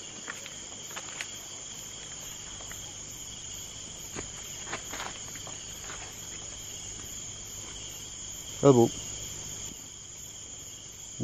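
Steady chorus of crickets and other insects, a high continuous trill with rapid even pulsing over it. There are a few faint clicks, and a brief voice sounds out loudly about nine seconds in.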